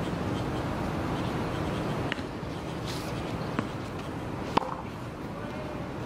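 Tennis ball being played on a hard court: three sharp pops of racket strikes and ball bounces, the loudest about four and a half seconds in, over steady background noise.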